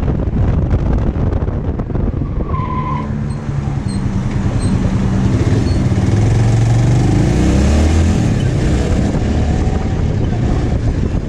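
Zontes motorcycle engine running under way, with wind noise on the microphone; the engine note climbs as the bike accelerates about two-thirds of the way through.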